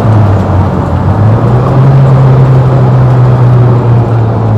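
VW Iltis's 75 PS four-cylinder engine running steadily under way, heard from inside the open cab over road and wind noise. The engine note rises a little about a second and a half in and drops back near the end.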